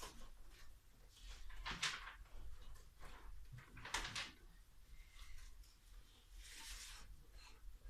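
Sheets of music paper rustling and being handled at a grand piano's music stand: three short, quiet swishes of paper with small handling knocks, and no playing yet.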